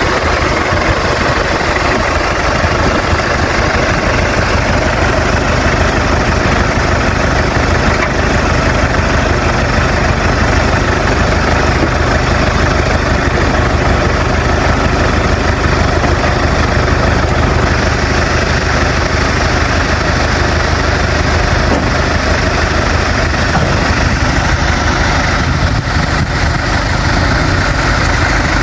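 Vehicle engine idling steadily, a loud even rumble with no change in speed.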